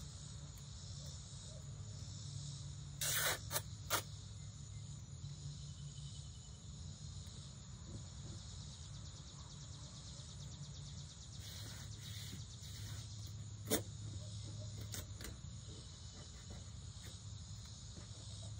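Steady background chirring of crickets or similar insects, with a low hum under it. Short louder noises cut through: one about three seconds in, a couple of sharp clicks just after, and another sharp click near fourteen seconds.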